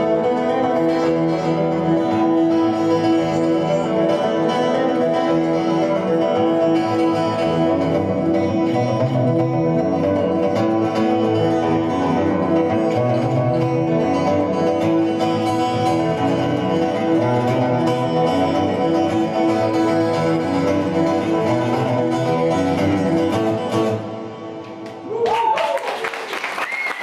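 Solo fingerpicked acoustic guitar piece, with a sustained ringing note under it, coming to its end about 24 seconds in. About a second later audience applause and calls break out.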